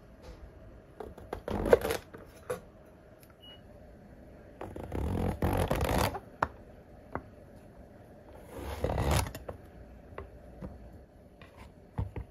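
Kitchen knife slicing through a king oyster mushroom stem on a wooden cutting board: several scratchy slicing strokes about a second long each, with light knocks of the blade on the board in between.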